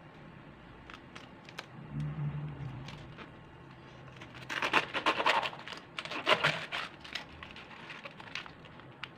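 Kitchen knife slicing through a head of cabbage on a wooden cutting board: crisp crunching of the leaves in two bursts of strokes around the middle, with light clicks of handling before and after.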